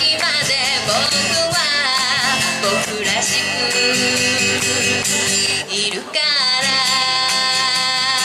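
Live acoustic folk-pop performance: strummed acoustic guitar under a wavering melody line, with a brief drop about six seconds in before a steady held chord.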